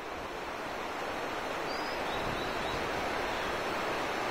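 A fast mountain river rushing over a rocky bed, a steady wash of water noise that swells slightly. A few faint, high bird chirps come about two seconds in.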